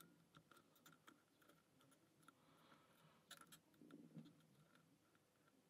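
Near silence with faint, irregular small clicks and ticks of a lock pick working the pins of a pin-tumbler challenge lock under tension.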